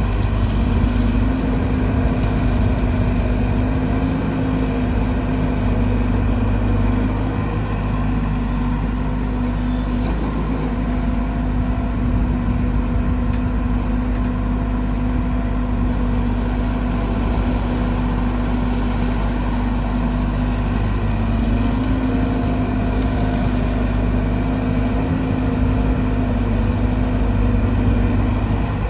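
JCB 140 NXT excavator's diesel engine running steadily, its pitch and level shifting slightly a couple of times as it works.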